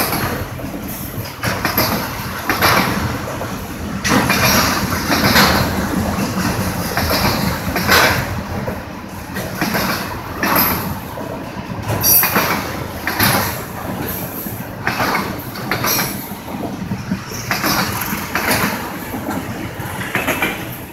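Autorack freight cars of a passing train rolling by, their wheels clacking over the rail joints in repeated strokes about every second, over a steady rumble.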